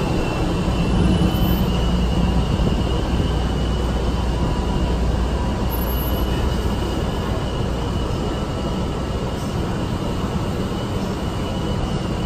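CTA 5000-series rapid-transit cars rolling slowly into the platform and stopping: a steady rumble and running noise with a thin, steady high-pitched tone, easing off a little in loudness.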